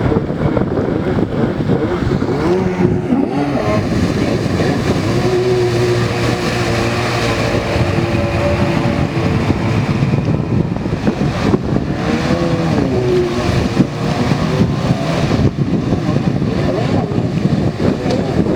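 Jet ski engine running and revving, its pitch rising and falling as the throttle changes.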